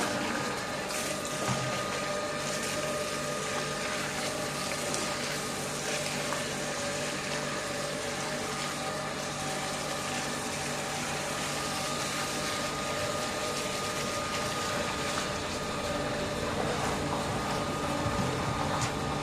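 A motor running steadily with a constant hum, together with water rushing.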